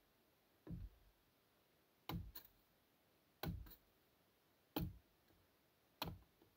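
Axe striking birch wood on a chopping block, splitting it into kindling: five sharp knocks at a steady pace about every second and a half, two of them followed closely by a lighter second knock.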